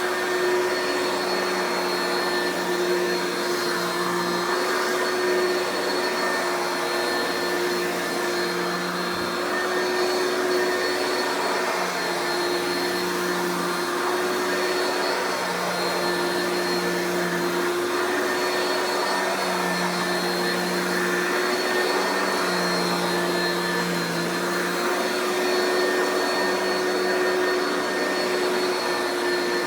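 Oreck XL2 Ultra lightweight upright vacuum running steadily, its motor giving a constant whine over a rush of airflow. A lower hum swells and fades every second or two.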